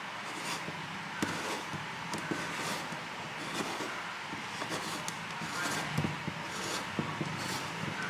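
Short rubbing and scraping strokes of plastic on plastic as a PVC pipe is turned against a bent PVC guide and a marker scratches a line around it. The strokes come every half second to a second over a steady background hum.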